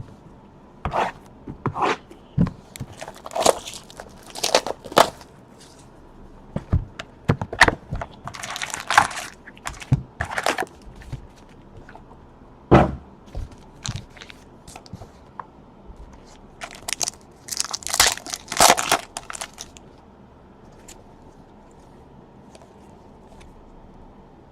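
Trading-card pack wrappers crinkling and tearing, and cards being handled, in a run of short crackles and taps. The longest stretches of crinkling come about eight seconds in and again about eighteen seconds in.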